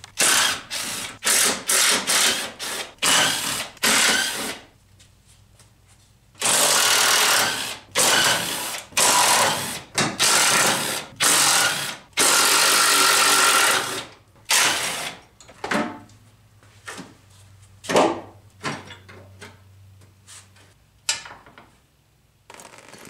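Cordless power driver run in many short bursts, with two longer runs of about a second and a half, backing out the fasteners of a car's grille and upper radiator support.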